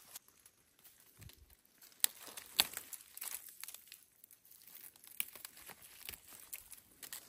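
Leaves and stems rustling and crinkling as a hand grips and handles a long-leaved plant, with a few sharp snaps, the loudest about two and a half seconds in.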